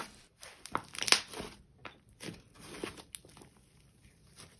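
Hands kneading and stretching a snow-cloud hybrid slime as soft clay is worked into it, giving irregular little crackles and squishes that thin out near the end.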